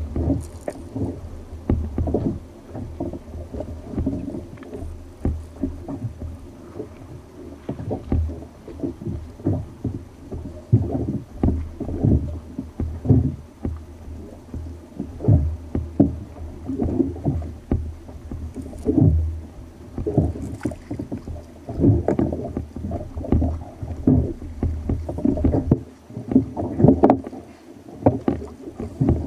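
Small waves slapping against a fishing kayak's hull in an uneven, continual run of splashes and knocks.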